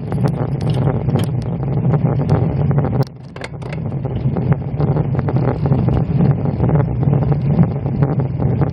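Riding noise picked up by a bicycle-mounted camera on a slow road-bike climb: a steady rumble of tyre, road and wind noise with many small clicks and rattles. The rumble dips briefly about three seconds in, then builds back.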